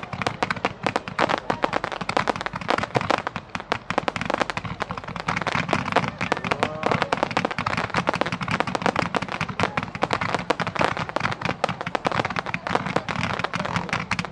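Aerial fireworks barrage: a dense, unbroken run of sharp bangs and crackling, many reports a second, with no pause.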